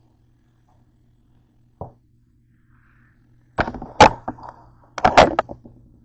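Handling knocks and clatter on a kitchen counter as a plastic Cool Whip tub is picked up and set down: a small click about two seconds in, then two quick clusters of sharp knocks, the second near the end.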